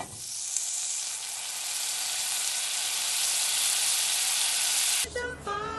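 Food sizzling in a hot wok over a gas flame: a steady frying hiss that cuts off suddenly about five seconds in, when music with a singing voice starts.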